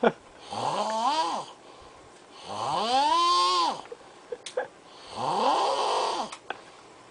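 A man snoring loudly in deep sleep: three long, pitched snores about two and a half seconds apart, each sliding up and then down in pitch, with a few short clicks in the gaps between them.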